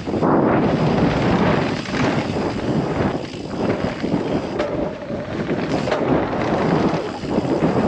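Santa Cruz Bullit electric mountain bike riding fast down a dirt singletrack: tyres rolling over the dirt and the bike knocking over bumps, with wind rushing over the microphone.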